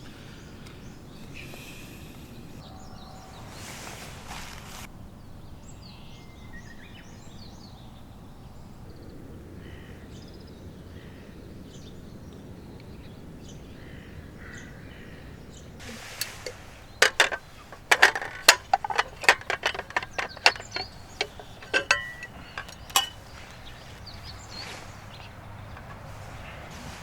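Steady outdoor background noise, then about sixteen seconds in a run of sharp clicks and clinks that lasts some six seconds, a few of them ringing briefly.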